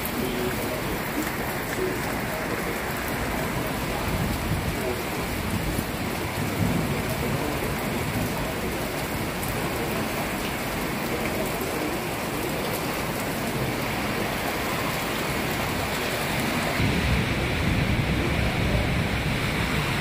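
Heavy rain pouring steadily in a thunderstorm. Near the end a low rumble of thunder builds under the rain.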